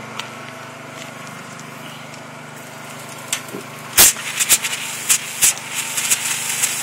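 Generator and water pump running with a steady hum. About four seconds in, water starts spraying from a hand-held shower head, with a hiss and several sharp knocks.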